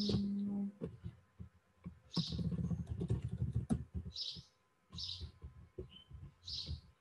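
Typing and clicking on a computer keyboard, thickest in the middle, while a bird chirps about five times in the background. A short, steady low hum sounds at the very start.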